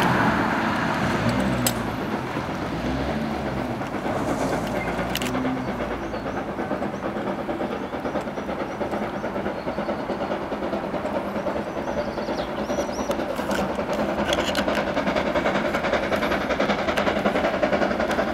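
Distant NZR Ka class 4-8-4 steam locomotive working as it approaches: a steady rush of exhaust and running noise that grows a little louder near the end. A passing car fades away in the first couple of seconds.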